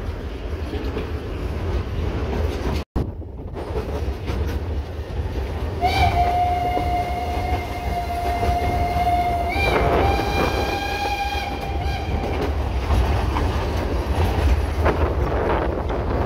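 Narrow-gauge train running with a steady low rumble, and a steam locomotive whistle giving two long blasts about six seconds in. The first lasts about four seconds, and the second, slightly higher, about two and a half seconds.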